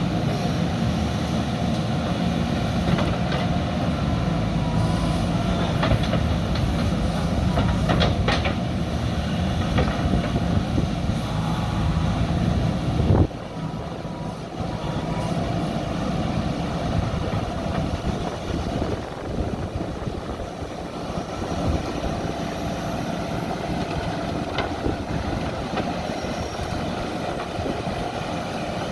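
Diesel engine of a JCB backhoe loader running under work, with scattered metallic knocks and clanks. A sharp knock about halfway through, after which the engine runs quieter.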